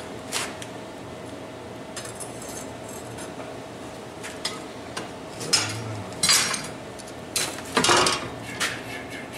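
Metal clinking and scraping on a large hand-forged steel frying pan: several short knocks spread out, the loudest and longest about eight seconds in as a hand reaches into the pan.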